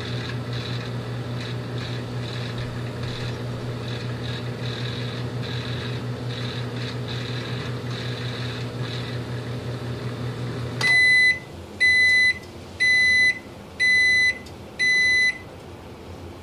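Microwave oven running with a steady hum, which stops about eleven seconds in; it then beeps five times, roughly once a second, signalling the end of the heating cycle.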